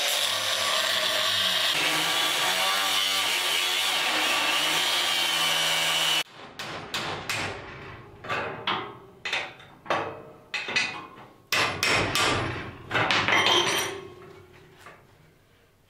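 Angle grinder with a thin cutting disc cutting through wrought iron scrollwork: a loud steady grinding whine that wavers in pitch and cuts off suddenly about six seconds in. It is followed by a run of a dozen or so separate sharp metal knocks and clinks as the cut scroll is worked at by hand.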